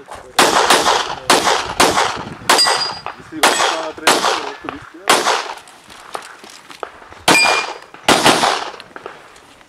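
Pistol fired in fast strings: about ten shots in the first five seconds, a pause of about two seconds, then two more shots. A few of the shots are followed by a short metallic ring.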